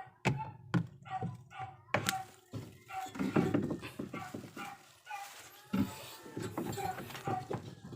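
A dog yelping and whining in short, repeated cries, with a few sharp knocks in the first two seconds.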